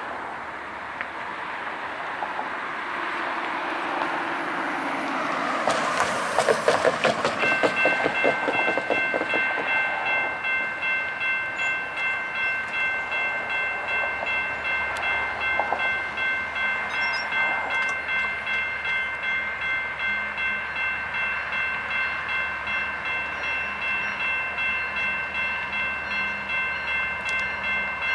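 Freight train passing: its approach builds to the locomotives going by about six seconds in, then the cars roll past with a steady, about once-a-second rhythm of wheels clacking over the rails. A steady high-pitched ringing tone sounds over the passing cars.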